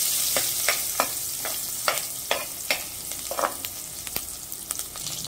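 Chopped garlic, curry leaves and dried red chillies sizzling in hot oil in a pressure cooker while a steel ladle stirs them. Sharp clicks of the ladle scraping the pan come every half second or so.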